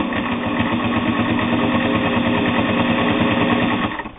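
Gear-driven Singer 401A Slant-O-Matic sewing machine running steadily at speed, motor whine and needle strokes, stitching through split leather with a standard needle; it stops near the end.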